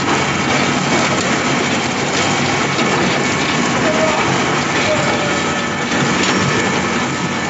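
Sawdust pellet mill running: a loud, steady, dense mechanical noise with a faint even hum underneath.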